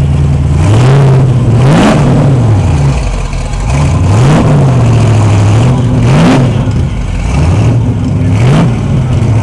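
A classic car's engine idling and being blipped four times, each rev climbing sharply and dropping back to idle. It is being free-revved with the hood up.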